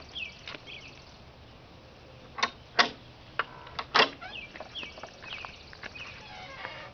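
Birds chirping in short downward-sweeping calls, broken by three sharp taps in the middle, the loudest sounds here.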